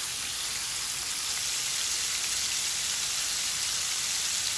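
Flour-coated chicken pieces deep-frying in a kadai of hot oil: a steady, even sizzle of the oil bubbling around the pieces, like rain on a surface.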